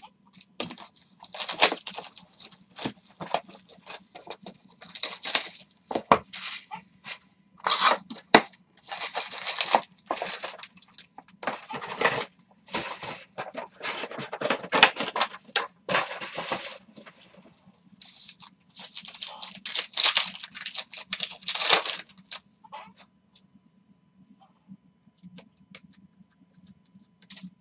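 Panini Prizm football hobby box being torn open and its foil card packs ripped open, a run of crinkling, tearing bursts that thin out near the end.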